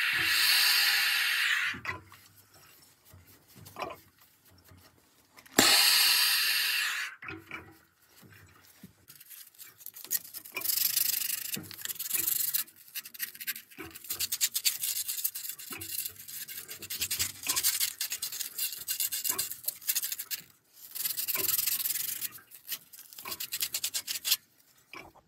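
Plumbing torch flame hissing steadily for about two seconds at the start and again for a second or so around six seconds in. Then abrasive emery cloth is rubbed rapidly back and forth around a copper pipe end to clean it, in fast rasping strokes broken by short pauses.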